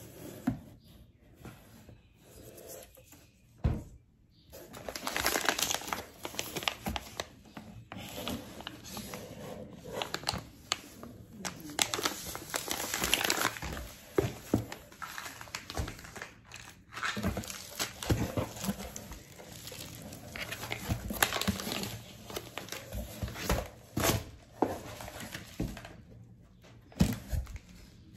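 Crinkling and rustling of packaging as items are handled and lifted out of a cardboard box: plastic sweetener pouches and bubble-wrapped bottles, with scattered knocks against the box. It is sparse at first and becomes busy a few seconds in.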